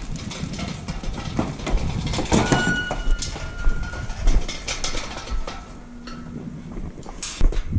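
A mob of sheep moving through metal sheep yards: many irregular clicks and knocks of hooves and rattling steel panels and gates.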